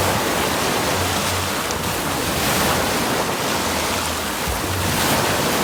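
Waves in a wave pool washing and splashing, a steady noise of moving water.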